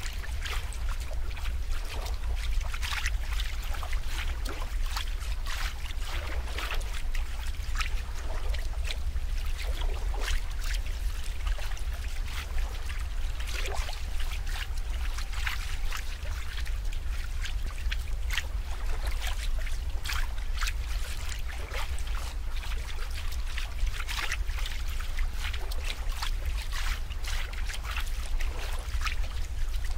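Water trickling and splashing: a steady stream of small, irregular splashes over a constant low rumble.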